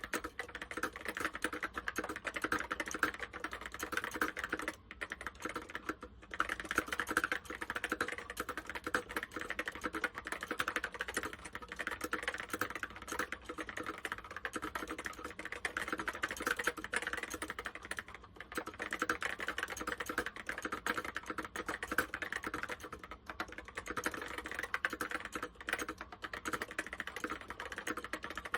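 Typing on an Apple M0110 keyboard with Alps SKCC Tall Cream switches: a fast, continuous stream of key clicks, with a few brief pauses.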